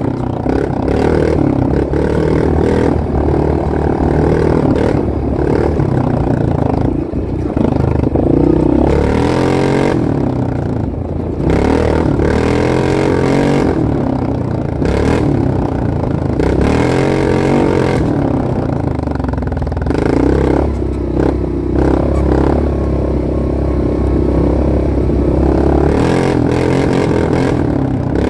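Off-road vehicle engine running under load, its pitch rising and falling again and again as the throttle comes on and off over a rough trail, with steady clatter and knocks from the vehicle.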